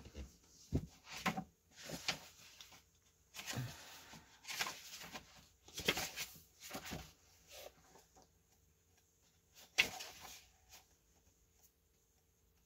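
Paper pages of a book being turned and leafed through: a string of short, irregular rustles and swishes, the loudest one near the end.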